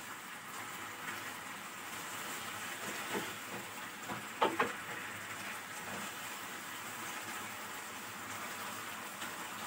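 Chicken, vegetables and sauce sizzling steadily in a non-stick frying pan, with a silicone spatula scraping the pan briefly a couple of times, about three and four and a half seconds in.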